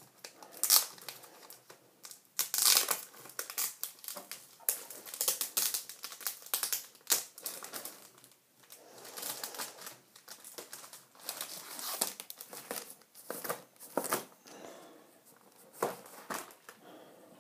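Packaging being handled while items are lifted out of a box: irregular crinkling and rustling with sharper crackles, loudest near the start and around the middle.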